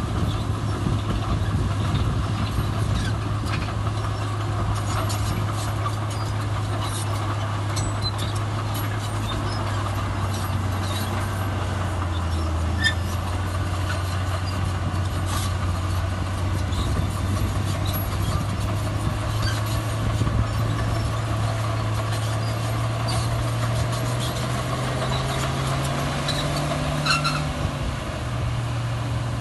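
Heavy diesel engine of earthmoving machinery running steadily under load. Its pitch drifts and climbs a little near the end, then drops back, with faint scattered clanks.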